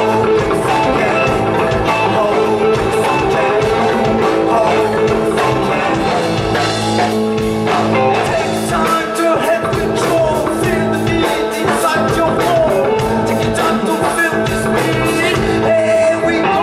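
Live rock band playing with a lead singer, electric bass, guitar and drums.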